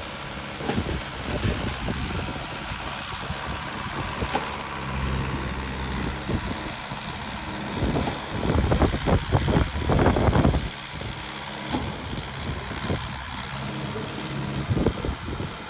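Concrete truck's engine running steadily, with a louder, rougher stretch about eight to ten and a half seconds in.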